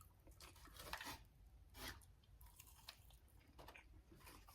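Faint chewing of fried chicken tenders: a few soft, short mouth sounds spread out about a second apart.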